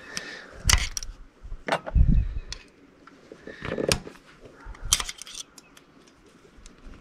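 Screwdriver prying the spring-steel rocker arm retaining clips off an open V8 valve train, giving a series of irregular sharp metal clicks and clinks. A duller knock comes about two seconds in.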